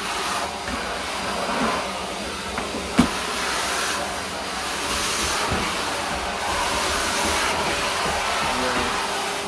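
Wet/dry shop vacuum running steadily, its motor whirring while it sucks up wet debris, with a brief click about three seconds in.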